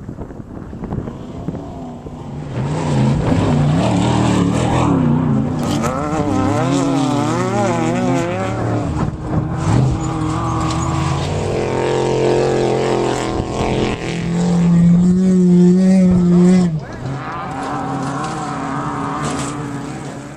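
Off-road race vehicle engines running hard, their pitch wavering up and down as the revs change, with a strong steady engine note about two thirds of the way in that cuts off suddenly.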